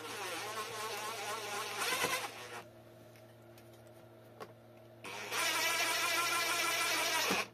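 Electric screwdriver whirring in two runs as it drives screws back in: the first stops about two and a half seconds in, and the second starts about five seconds in and cuts off sharply near the end.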